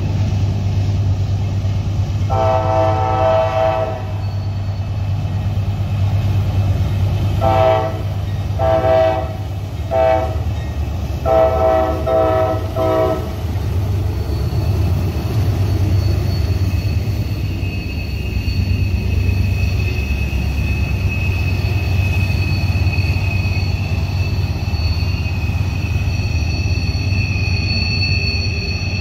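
Norfolk Southern diesel freight locomotives passing close by with a steady low rumble. The horn sounds one long blast about two seconds in, then a run of short blasts between about seven and thirteen seconds. From about fourteen seconds on, a high steady squeal of wheels on the sharp curve joins in and grows stronger.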